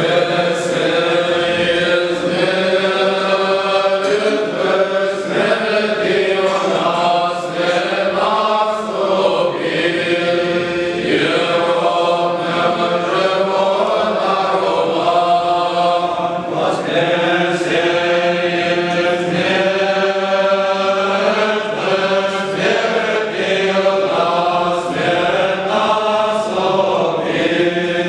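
Orthodox church chant sung by voices over a steady low held drone, continuous throughout with the melody moving above the unchanging bass note.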